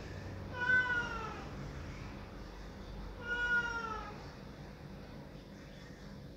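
Domestic cat meowing twice at a closed door, crying to have it opened. Each meow is a long call of about a second that drops in pitch at the end.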